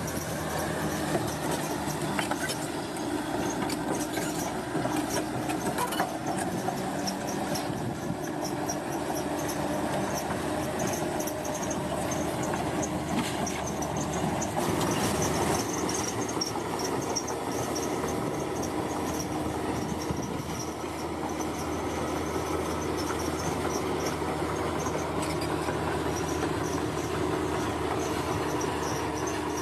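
Komatsu crawler bulldozer working, its diesel engine running steadily while the steel tracks clank and squeal.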